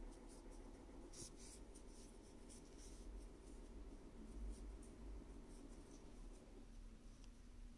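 Faint scratchy rustling of cotton yarn being drawn through stitches by a metal crochet hook while single crochet increases are worked, with small scattered scratches.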